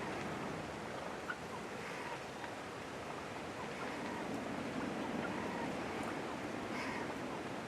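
Steady wind-like outdoor noise, with a few faint short bird calls scattered through it.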